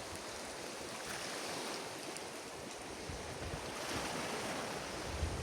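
Surf on a beach: a steady hiss of waves washing in, swelling slightly about four seconds in.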